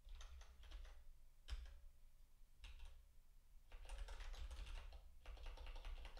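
Computer keyboard typing, in several short runs of quick keystrokes with brief pauses between them.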